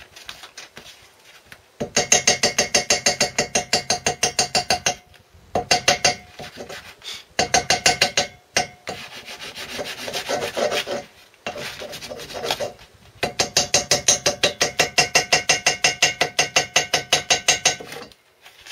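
Ball-pein hammer tapping rapidly on gasket paper laid over a two-stroke engine cylinder's flange, cutting out a new gasket by hammering the paper against the metal edge. The light blows come about seven a second, each with a short ringing note, in several spells of a few seconds with pauses between, the longest near the end.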